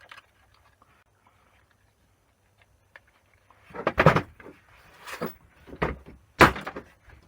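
Hammer blows on a metal casting from a scrapped combi boiler, being knocked apart to split it. It starts with small handling ticks, then about four sharp strikes come from around four seconds in, each with a short ring.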